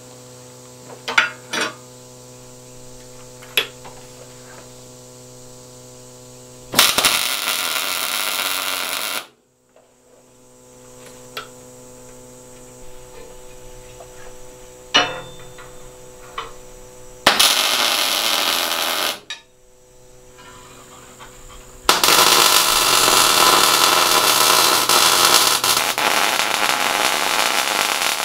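A few light metal clinks over a steady hum, then a wire-feed (MIG) welder arcing in three runs of crackling: two of about two seconds each, a quarter and about three fifths of the way in, and a longer run from about three quarters in.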